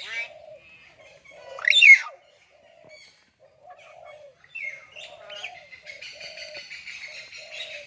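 Myna birds calling: a loud whistle that sweeps up and back down about two seconds in, short low warbling notes repeated throughout, and a long buzzy chatter from about halfway to the end.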